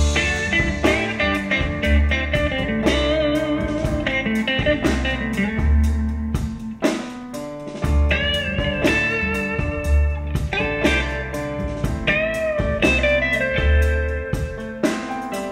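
Klipsch RP-600M II bookshelf speakers playing the instrumental intro of a blues song, guitar over a pulsing bass line, picked up by a stereo pair of microphones. The music starts suddenly at the beginning.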